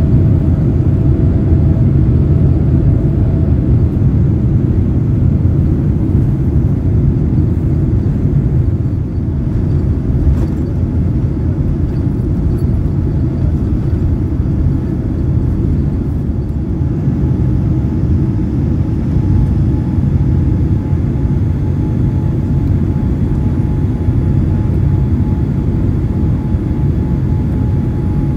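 Cabin sound of a Boeing 787-8 on its takeoff roll and lift-off: a loud, steady rumble of the engines at takeoff thrust. A faint steady whine joins in a little past the middle.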